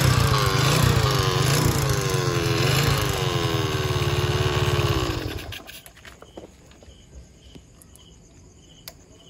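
Small motorcycle engine running and revved up and down several times, then cut off about five and a half seconds in, after which faint crickets chirp.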